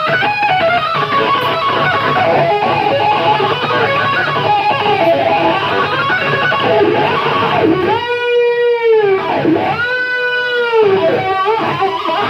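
Live heavy rock electric guitar solo: fast runs of notes, then about eight seconds in two long notes, one after the other, each bent up and back down.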